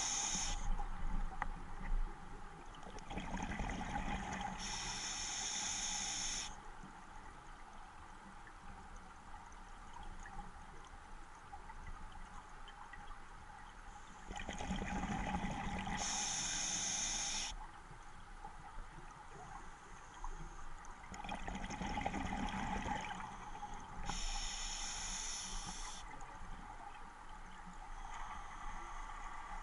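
Scuba diver breathing through a regulator underwater: hissing inhalations alternating with bubbling exhalations, in a slow repeating cycle of a few breaths.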